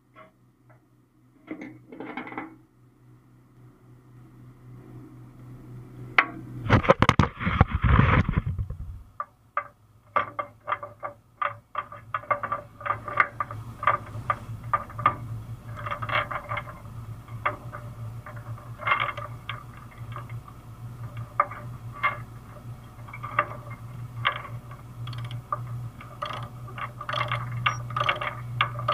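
Ratchet load binder being cranked tight on a tie-down chain: a long run of irregular ratchet clicks with chain links rattling, over a steady low hum. A loud clatter lasting about two seconds comes about seven seconds in.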